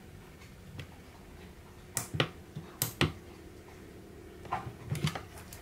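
Button clicks on a Launch BST-460 handheld battery tester being pressed to start a battery test: a few sharp clicks about two seconds in, and another cluster near the end.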